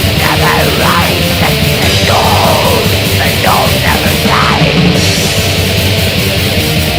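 Heavy metal song from a full band, dense and loud throughout, with harsh, shouted vocals over the first few seconds.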